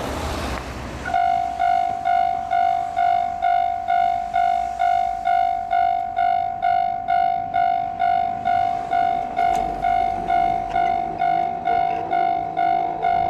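Level-crossing warning bell starting about a second in, ringing in even strikes about two and a half a second, each a bright tone that fades away. Wind noise on the microphone before it, and a faint low hum under the bell near the end.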